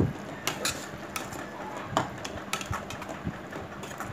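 Metal spoon scraping and tapping against a steel kadai while stirring thick masala, in irregular scrapes and knocks about every half second.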